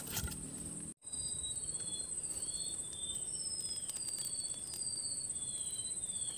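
Steady high-pitched insect drone from the swamp, with a run of short whistled bird notes, each sliding down in pitch, over it. The sound cuts out for an instant about a second in.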